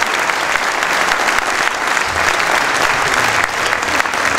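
Audience applauding steadily, a dense, even clapping that goes on unbroken.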